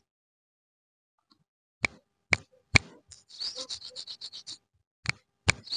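After a silent start, a series of sharp, separate pops and clicks: three about half a second apart, then a quick run of small, high, squeaky ticks, then more single pops near the end.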